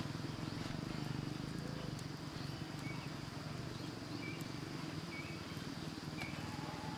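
A dense swarm of giant honeybees buzzing, a steady low hum, with a few short bird chirps over it.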